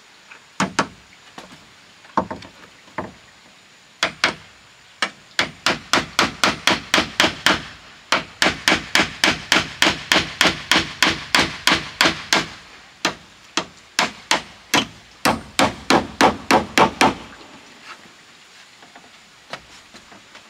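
Hammer driving nails into wood. A few single blows come first, then steady runs of about three to four blows a second with short pauses, stopping a few seconds before the end.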